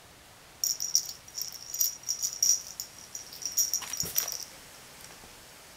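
A small bell on a cat toy jingling in quick irregular bursts as a kitten bats and pounces on it, with a soft thump about four seconds in.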